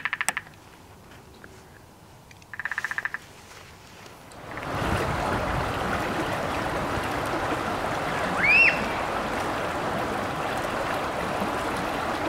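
A woodpecker drumming on a tree in two short rapid rolls, the second about two and a half seconds in. From about four and a half seconds a stream runs and ripples steadily over a shallow edge, with one short rising bird chirp in the middle.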